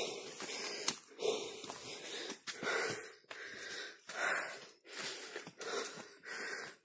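Heavy, quick breathing close to the microphone: a hiker panting in and out while climbing a steep rocky trail.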